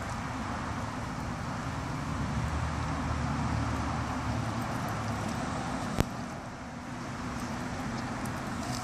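Steady hum of distant road traffic, with a single sharp click about six seconds in.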